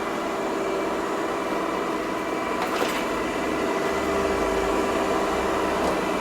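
Ecovacs Deebot N10 robot vacuum running during its first cleaning and mapping pass: a steady motor and fan hum with a faint whine.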